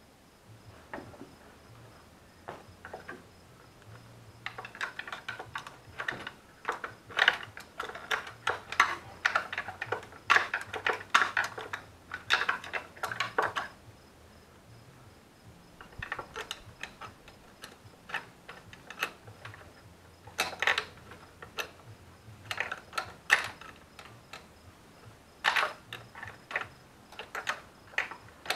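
Hand socket ratchet clicking in quick runs as bolts at the ignition coil are worked by hand, in three spells with short pauses between.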